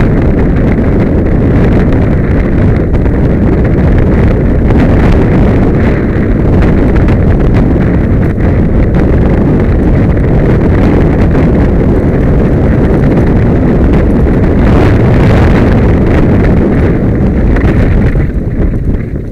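Heavy wind buffeting on the microphone of a camera mounted on a mountain bike riding fast downhill, mixed with the rattle and clatter of the bike and its tyres over a dirt trail. The noise falls away sharply near the end.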